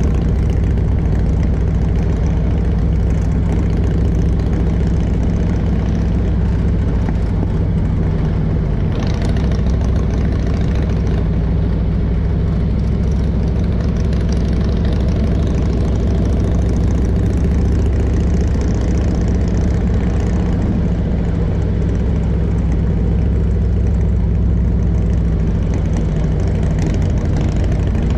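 Harley-Davidson motorcycle engine running steadily at an easy cruising speed, with wind and road rush over it.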